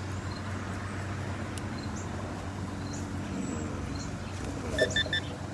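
Handheld metal detector giving three short beeps near the end as it passes over buried metal, over a steady low background rumble.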